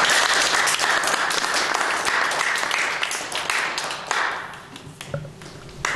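Small audience applauding at the close of a talk. The clapping thins out after about four seconds, leaving a few scattered claps as it dies away.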